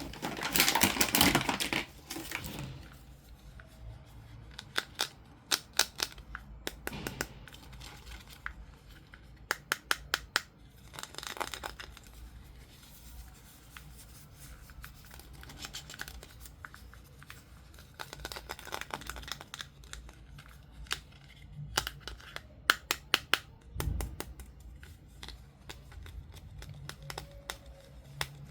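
Toy packaging being opened by hand: bursts of tearing and crinkling, with many small sharp clicks and taps in between.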